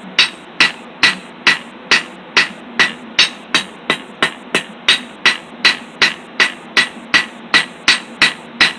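Hand hammer striking hot 3/8-inch round steel stock on an anvil, flattening the end of the bar. Steady, even blows about two to three a second, each with a short metallic ring.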